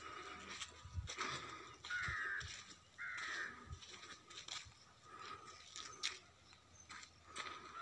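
A crow cawing twice, two harsh calls of about half a second each a second apart, over a steady thin tone and light footsteps on dry soil.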